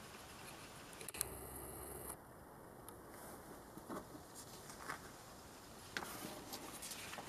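Faint handling noise of a paper booklet and the filming camera: a sharp click about a second in, a low hum for about a second after it, then a few soft taps and rustles.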